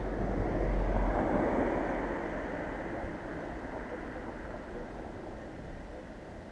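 A car driving past on the road, its tyre and engine noise swelling over the first second or so, then slowly fading away.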